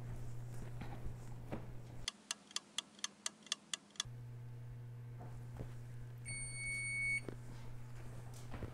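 A kitchen-timer ticking sound effect, about eight quick ticks at roughly four a second, then a Frigidaire wall oven's timer sounding one long beep of about a second as its countdown ends. A low steady hum runs under the rest.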